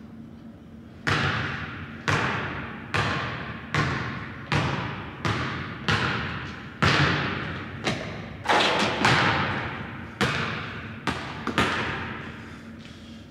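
A basketball bouncing on a hardwood gym floor, dribbled in a slow, uneven rhythm of roughly one bounce a second, about fifteen bounces in all. Each bounce echoes through the large gymnasium. The bouncing starts about a second in and stops near the end.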